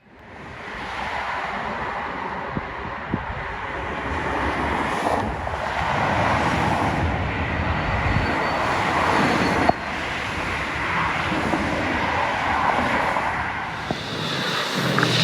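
Road traffic noise: an even rushing of vehicles moving on a highway, swelling and easing slowly.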